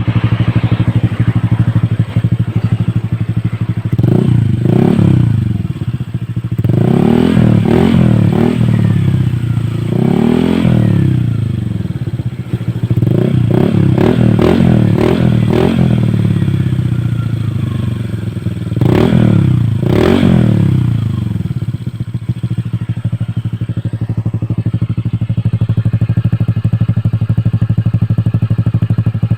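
Honda Click 125i scooter's single-cylinder engine through an aftermarket Akrapovic exhaust, revved in a series of short throttle blips from idle. It then settles back to a steady idle for the last several seconds.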